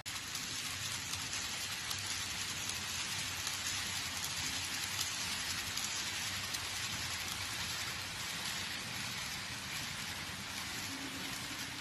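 Model freight trains running on a layout's track: a steady rushing hiss of wheels and motors with faint fine clicking. It starts abruptly.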